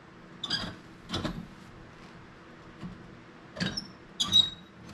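Rusty worm-drive fireplace damper squeaking in four short, high-pitched bursts as its corkscrew is turned, the last the loudest. The rusted mechanism is not working properly; the sweep believes the hinges holding the damper plate are rusted out, so the screw pushes against the plate instead of opening it.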